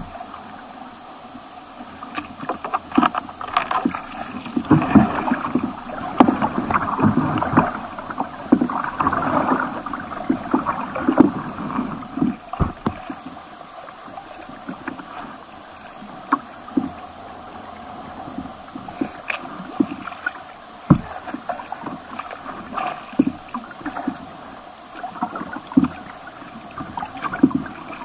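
Water rushing and gurgling against a kayak's hull as it moves down a riffly stream, with irregular splashes and knocks against the boat, busiest in the first dozen seconds.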